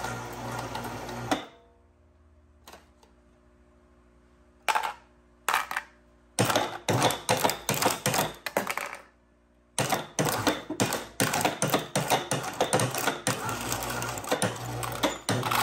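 Precious Plastic twin-shaft shredder's steel cutter discs crushing and tearing aluminum cans: a dense run of sharp metallic cracks and crunches. It is cut by a few quiet seconds near the start, with just a faint steady hum and two or three single cracks, and by a short break midway.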